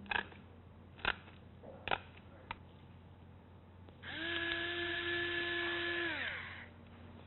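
Battery-powered pepper grinder's small motor whirring steadily for about two and a half seconds, its pitch sagging as it winds down and stops. A few brief light knocks come before it.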